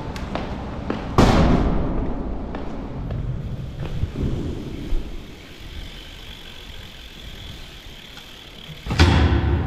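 BMX bike riding on a concrete skatepark floor: tyres rolling, a loud thud about a second in that rings on in the hall, and another loud hit near the end as the bike reaches a low flat rail.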